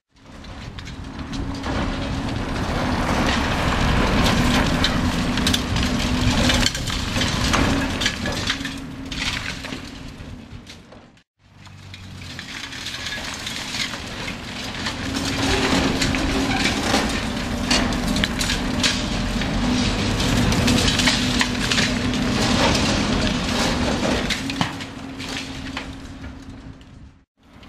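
High-reach demolition excavator's hydraulic crusher jaws biting into reinforced concrete: continuous crunching and cracking with rubble falling, over the steady drone of the machine. The sound fades out and back in about eleven seconds in.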